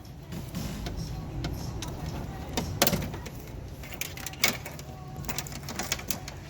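Scattered sharp clicks and knocks of hand work inside a car door shell, over a steady low hum, with the two loudest knocks about three and four and a half seconds in and a quick run of clicks near the end.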